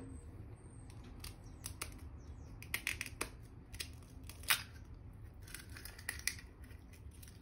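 Faint, scattered light clicks and crackles of eggshell being fingered and cracked by hand over a stainless steel bowl of shredded cabbage.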